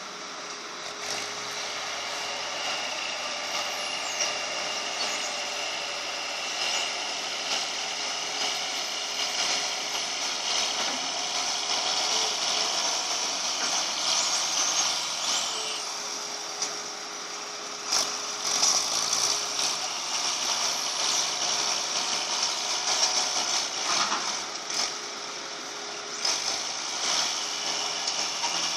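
Small excavator dredging hard: its low-powered diesel engine runs under load, a bit rough, with a steady hydraulic whine, high squeals from the boom and bucket, and a few sharp knocks, the loudest about two-thirds of the way in.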